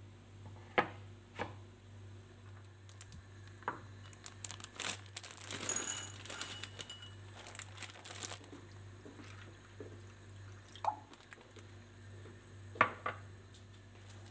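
Kitchen prep handling on a stone countertop: scattered sharp knocks as a wooden cutting board, a bowl and then a cabbage are set down, with a few seconds of crinkling rustle in the middle and a quick double knock near the end.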